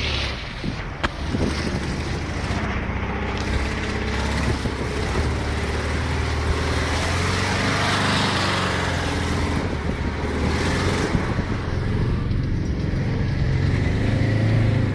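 ZAZ 968M Zaporozhets's rear-mounted air-cooled V4 engine running steadily under load as the car drives along a muddy track, with a sharp knock about a second in.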